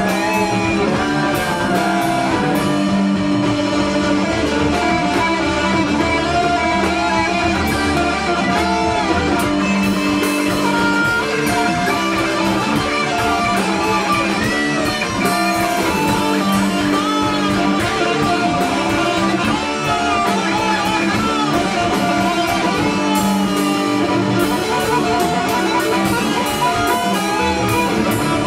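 Instrumental music led by guitar, with long held chords under a wavering melody line.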